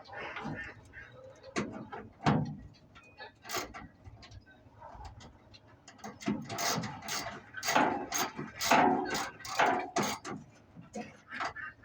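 Hand tools clicking and knocking on metal in irregular sharp strokes, busiest and loudest in the second half, as a clamp holding a battery cable is fastened in place.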